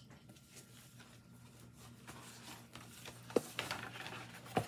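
Faint rustling of a shipping box and comic-book packaging being handled, with two short knocks near the end.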